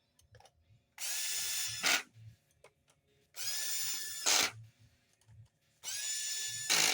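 Power drill driving screws back into a framing nail gun's housing: three separate runs of about a second each. Each run's motor whine rises briefly, holds steady, and ends in a short louder burst.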